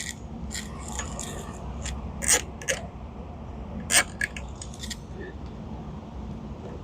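Zip tie being threaded and pulled tight around a pulpit rail: scattered clicks and scrapes, with two sharper clicks a little over two and four seconds in, over a steady low rumble.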